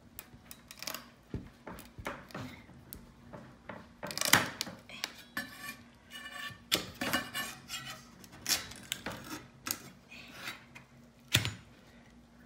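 A kitchen knife scraping and prying dried paint drips off a cardboard sheet: irregular scrapes, crackles and clicks of the blade on the cardboard and brittle paint, the loudest about four seconds in.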